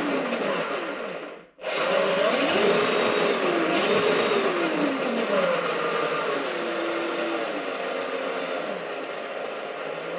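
Power Wheels ride-on toy's electric drive motor, run from a DeWalt battery through a variable-speed controller, whining as the pedal is pressed. The whine rises and falls in pitch as the speed changes, cuts out briefly about a second and a half in, then starts again and settles lower near the end.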